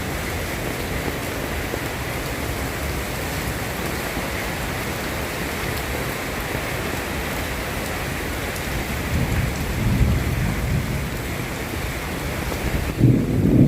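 Steady rain falling, an even hiss. A low rumble swells about two-thirds of the way through, and a louder one comes near the end.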